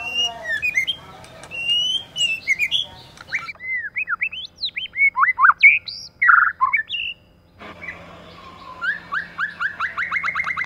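White-rumped shama singing varied clear whistled phrases with sharp slurred notes. The song breaks off briefly a little past the middle, then goes on as a quick run of short, repeated rising notes near the end.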